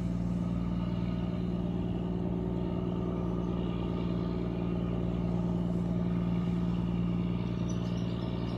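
An engine running steadily at a constant low speed, an even deep drone that holds the same pitch throughout.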